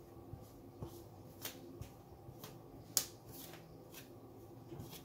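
Fingers rubbing butter into flour in a plastic mixing bowl: a soft, faint rustling broken by light clicks about twice a second, the sharpest about three seconds in.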